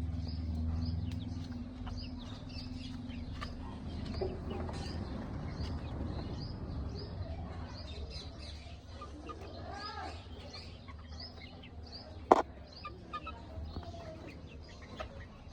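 Desi chickens calling softly, with short high chirps repeating every half second or so and a few low clucks near the middle. A low hum fades out over the first few seconds, and a single sharp click about twelve seconds in is the loudest sound.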